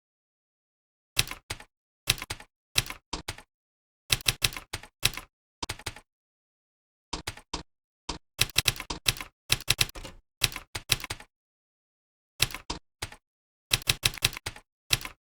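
Computer keyboard typing in short bursts of rapid keystrokes, with dead-silent pauses between bursts: the longest during the first second and around twelve seconds in.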